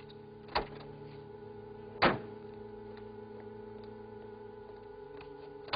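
Three sharp knocks from a convertible car's body and door as a man climbs out of it; the loudest comes about two seconds in. A steady hum runs underneath, from an old film soundtrack.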